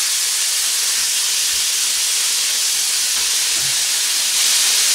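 Pork shoulder steaks sizzling steadily in hot oil in a frying pan as they are turned over with tongs to sear; the sizzle swells a little near the end.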